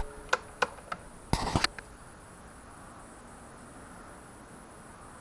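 Four sharp metallic clicks about a third of a second apart and a brief scraping rustle in the first two seconds, from hand work on the open engine as it is turned over to top dead centre; after that only a faint steady hiss.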